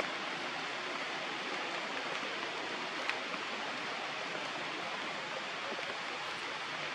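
Steady, even outdoor background hiss with no distinct source, and a single faint click about three seconds in.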